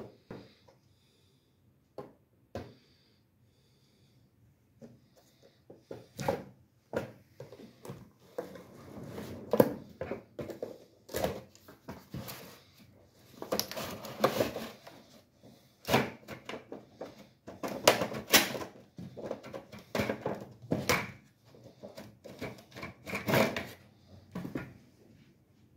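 Hands handling cardboard and plastic packaging: a few separate clicks at first, then from about six seconds on a busy run of scrapes, rubbing and knocks as the outer box is slid off the model car's plastic display case.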